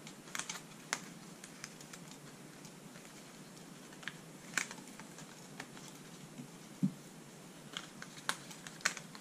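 Scattered soft clicks and paper crackles as small die-cut pieces are pushed out of a cut paper sheet by hand, irregular and a dozen or so in all.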